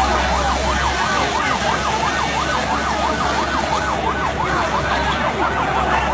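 Emergency vehicle siren in a fast yelp, rising and falling about three times a second, over the steady noise of a large crowd.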